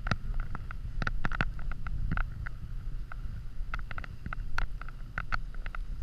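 Footsteps crunching and swishing through deep fresh snow in irregular steps, over a steady low rumble of wind on the microphone.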